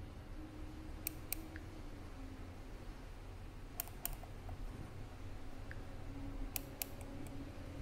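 A hand pressing and squeezing crumbly rava laddu mixture in a bowl, with faint sharp clicks coming in quick pairs three times, over a low steady hum.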